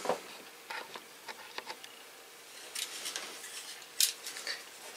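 Faint clicks and rustling of something being handled, with one sharper click about four seconds in.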